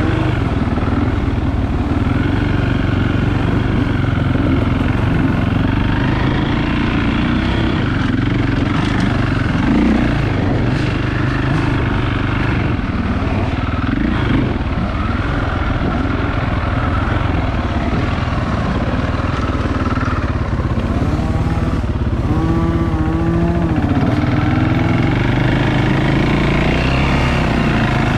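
Dirt bike engine running under load on a trail, the throttle opening and closing so its pitch keeps rising and falling, with several clear revs up and down in the second half.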